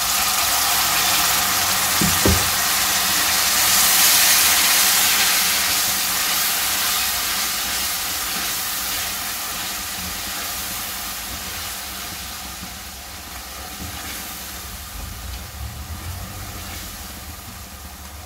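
Loud hissing sizzle of water poured into hot oil and frying onion-tomato masala in an aluminium pan, strongest about four seconds in and slowly dying down as the water heats. A single knock about two seconds in.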